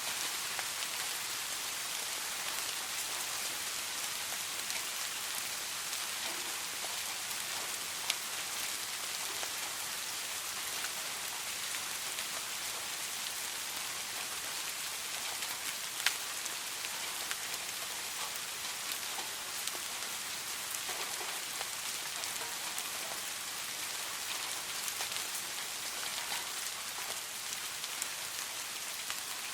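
Steady soft rain falling, an even hiss of many drops with occasional louder single drop ticks, the sharpest about eight and sixteen seconds in.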